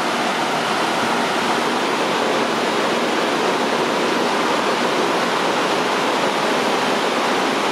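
850 W PWM radiator cooling fan from a 2005 Mercedes M500, running at high speed on a 10 Hz PWM signal: a loud, steady rush of air. It grows a little louder over the first couple of seconds as the duty cycle is turned up past 50% toward 60%.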